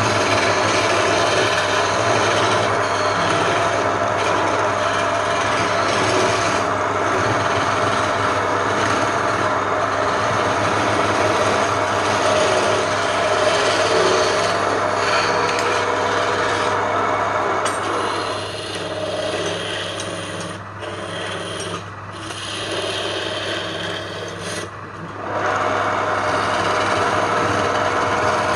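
A power tool abrading wood: a continuous rasping, grinding noise over a steady motor hum. The cutting eases off for several seconds about two-thirds of the way through, then picks up again at full strength.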